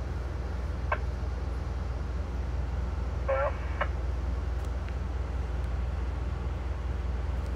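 Steady low rumble inside an Amtrak passenger train car, with a faint click about a second in and a brief higher-pitched sound and click a little after three seconds.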